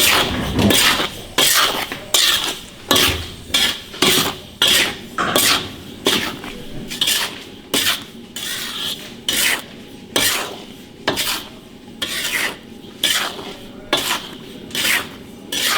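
Salt being stir-fried dry in a hot wok: a spatula scrapes it around the pan in quick rasping strokes, about two a second.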